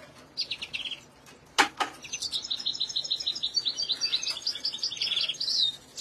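A caged songbird singing: a short burst of chirps, then a long run of fast, high trills that ends in a falling note. A single sharp knock sounds about one and a half seconds in.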